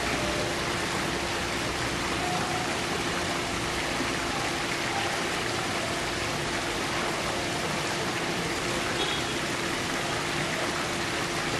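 Steady, even rushing hiss with a faint steady hum underneath.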